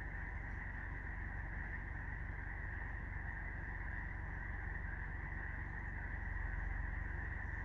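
A dense chorus of frogs calling, so many voices that it runs together into one steady high trill, over a low steady rumble.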